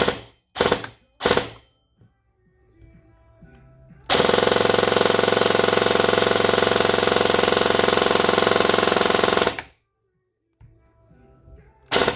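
Upgraded Krytac Kriss Vector electric airsoft gun firing: three short bursts in quick succession, then one long full-auto burst of about five and a half seconds at a very high rate of fire, then two more short bursts near the end.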